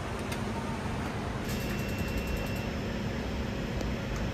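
Hot air rework gun blowing a steady rush of air onto the underside of a circuit board, heating the solder so the ESP32 module can be lifted off.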